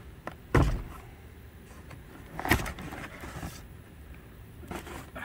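Cardboard packaging being handled inside a shipping carton: a dull thump about half a second in, a sharper knock near the middle, and a few softer knocks and rustles after.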